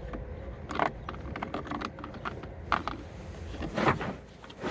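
Irregular clicks and light rattles of screwdriver bits and a plastic tool-kit case being handled, with a few louder clicks about a second in, near three seconds and just before the end.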